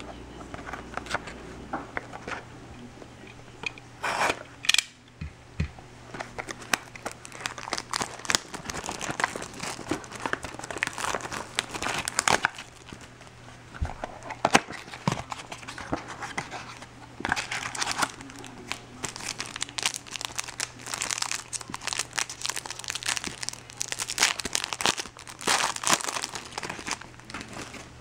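Trading-card box and packs being torn open by hand: irregular crinkling and crumpling of wrappers with sharp tearing rustles, busiest through the second half.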